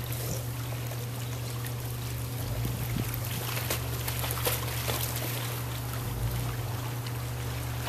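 Pool water splashing and sloshing as dogs paddle and a person wades, with scattered small splashes over a steady low hum.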